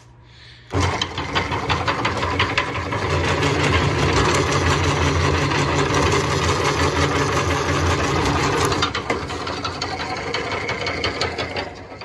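Electric motor driving the geared rollers of a homemade wire stripper, converted from a metal roller/shear/brake, running with a steady hum and a dense rattle as a thick copper wire is fed through. It starts suddenly about a second in and runs quieter for the last few seconds. The rollers slip on the wire, which the owner puts down to grease on them.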